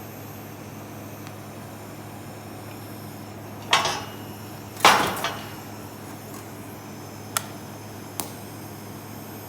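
Two loud metal-on-steel clanks about a second apart, each ringing briefly, then two light ticks, over a steady electrical hum.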